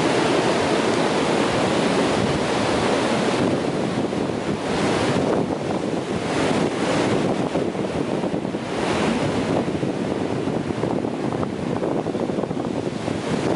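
Ocean surf: waves breaking just offshore and washing up the sand, a continuous rushing noise. Its hiss swells and fades every second or two as successive waves come in.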